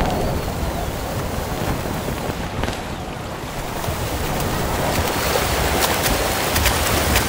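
Steady rushing of wind and propellers from an FPV drone in flight, picked up by the camera mounted on the drone. Near the end, as it skims low over the swimmers, sharp splashes of freestyle strokes join in.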